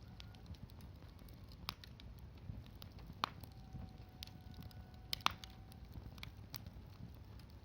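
Campfire crackling: scattered sharp pops and ticks over a low rumble, with two louder pops in the middle and a faint thin whistle lasting about two seconds.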